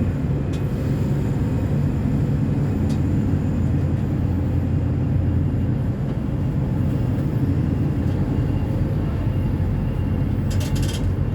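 Diesel engine of a 2014 Neobus Thunder bus on an Agrale MA 10.0 chassis running steadily, a low, even drone with a few faint clicks about three seconds in and near the end.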